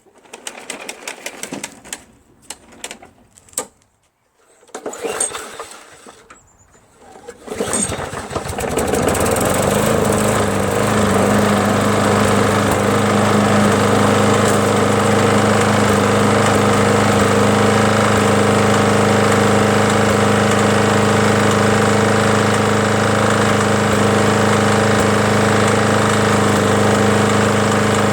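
Lawn mower engine: a few clicks of handling, then about eight seconds in it starts, rises in pitch and settles into a loud, steady run. It is being run after an oil change to check whether it still smokes and clanks.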